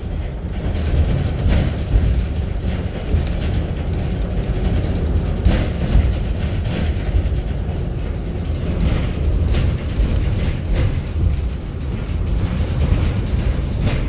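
Steady low road rumble heard from inside a vehicle's cabin as it crosses a bridge, with scattered light knocks and rattles.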